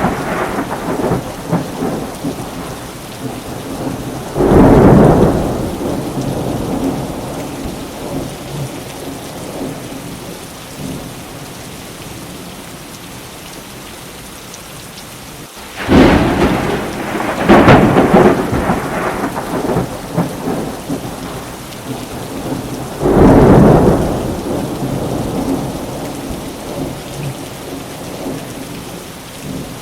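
Thunderstorm with steady rain. Four peals of thunder break over it: one about four seconds in, two close together around the middle, and one a little later. Each starts suddenly and fades out over a second or two.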